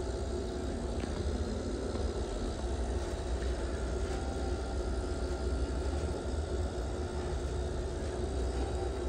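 Steady low hum and rumble of aquarium air pumps running the sponge filters, with no breaks or distinct events.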